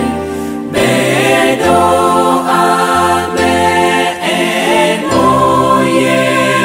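Mixed choir of men's and women's voices singing a gospel hymn in harmony, with a low bass part on long held notes. The singing grows louder a little under a second in.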